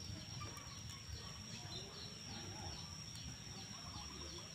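Faint outdoor background: small bird chirps repeating every fraction of a second over a steady high-pitched whine and a low rumble.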